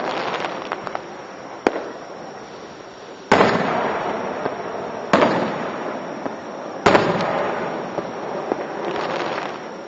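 Aerial fireworks shells bursting: three loud booms about two seconds apart, each fading slowly, with smaller pops and crackles between them. Heard through a dashcam microphone, which cuts off the high end.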